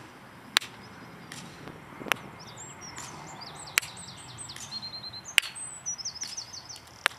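Swiss Arms P1911 CO2 blowback BB pistol firing: five sharp cracks spaced about a second and a half apart. Birds chirp in the background.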